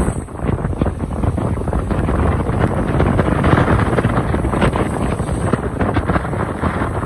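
Strong wind buffeting the microphone in irregular gusts, loudest in the middle, over rough sea waves breaking and washing against a rock breakwater.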